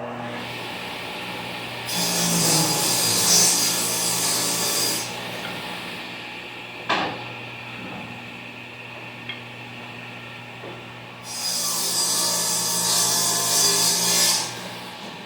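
Table saw running steadily and making two rip cuts through half-inch plywood, each cut a few seconds long, with a single sharp knock between them.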